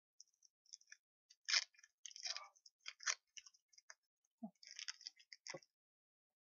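Paper wrapper of a small piece of Bazooka bubblegum crinkling and crackling as it is unwrapped by hand, in an irregular run of short crackles that stops shortly before the gum goes into the mouth.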